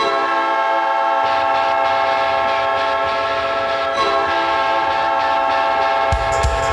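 Winnipeg Jets hockey goal horn blowing for a goal: a loud, steady chord of tones, sounded again about four seconds in. Drums of the goal song come in near the end.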